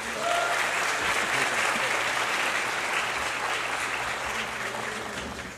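An audience applauding, the clapping starting at once and slowly dying away.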